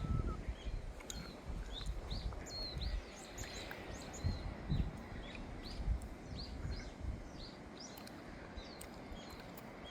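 Small birds chirping, many short high calls repeated every half second or so, over an uneven low rumbling background noise with a few soft thumps.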